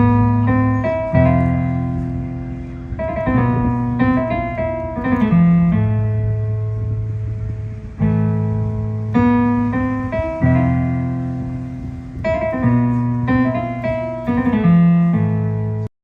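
Piano playing a slow chordal phrase: chords are struck and left to ring and fade, and the phrase repeats about eight seconds in. The music cuts off abruptly near the end.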